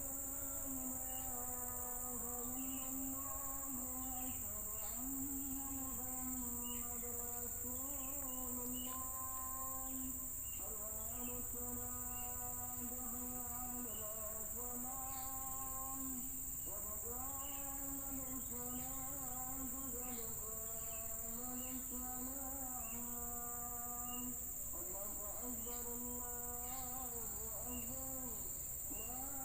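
A steady high-pitched drone of rainforest insects such as cicadas or crickets, with small scattered chirps. Over it runs a slow melody of long, wavering low notes in phrases a few seconds apart.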